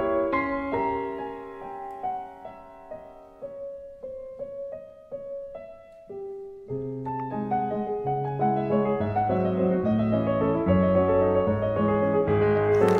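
Solo piano music. A soft, sparse passage gives way to fuller chords with low bass notes about seven seconds in.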